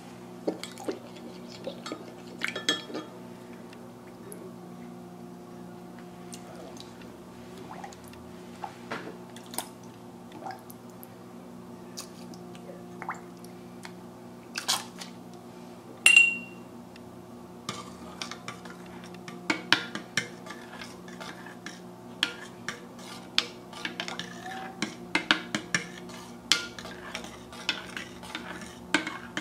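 A spoon clinking and tapping against glass measuring cups while salt solution is stirred into liquid soap to thicken it. The taps are sparse at first, with one bright ringing clink about halfway through, then come thick and fast as the stirring picks up in the second half. A steady low hum runs underneath.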